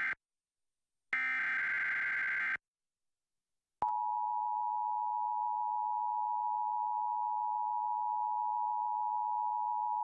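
Emergency Alert System test signal: two short bursts of warbling digital SAME header data a second apart, then the steady EAS attention tone starting about four seconds in and held unbroken.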